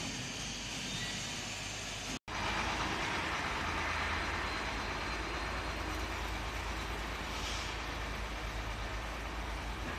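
A steady low mechanical rumble with a hiss over it. It is broken about two seconds in by a split second of dead silence where the footage is cut.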